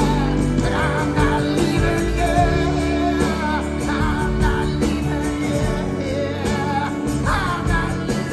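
Live band music with a singer's voice carrying wavering, held notes over steady accompaniment.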